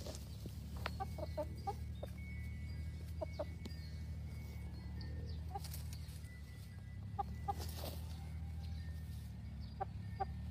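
Brahma hens clucking softly in short runs of low clucks, a few at a time about a second in, at three seconds, around seven seconds and near the end, over a steady low hum.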